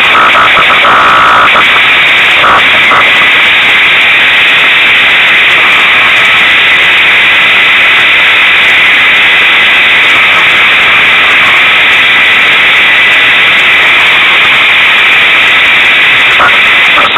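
Unimog 404 S trial truck's engine running while the truck stands still, heard as a loud, steady, distorted noise through an overloaded onboard camera microphone.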